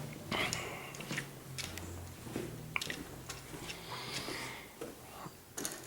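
Scattered light clicks and taps of handling, at irregular times, over a faint low hum.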